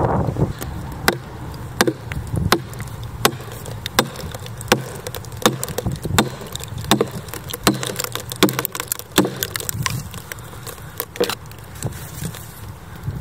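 Red oak log splitting open along a crack held with wooden wedges: sharp woody cracks, about one every three-quarters of a second, as the split is worked wider.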